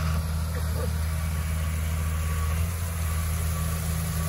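Engine of the track's water truck running steadily with a low, even drone, and a hiss above it.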